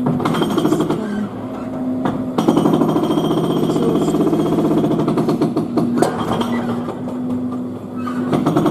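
Jackhammer from building work, heard loud inside a living room as a rapid, continuous hammering. It eases briefly about two seconds in and again near the end, when a steady hum comes through.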